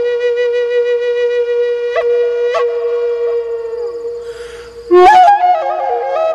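Background music on a solo flute. It holds one long note that fades away about four seconds in, then comes a breath, and a louder ornamented phrase of quick changing notes begins about five seconds in.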